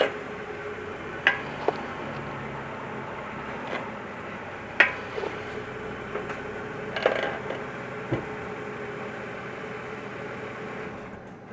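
Brakes of a 2013 BMW 535i M Sport clicking: about seven sharp, irregularly spaced clicks over a steady vehicle hum, the loudest about five seconds in.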